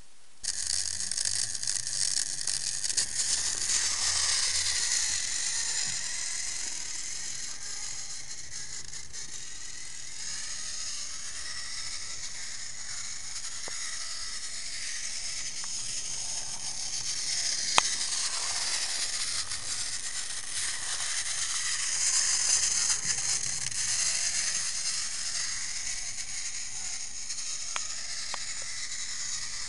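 A battery-powered TrackMaster toy engine's small motor and gears whirring steadily as it runs along plastic track, growing louder and softer as it comes nearer and moves away. There is a single sharp click partway through.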